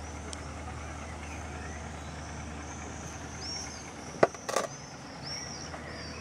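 Steady low drone of a Cessna F150L light aircraft engine overhead, with birds chirping high above it. A sharp knock and a short bump about four seconds in, from the camera being handled as it swings.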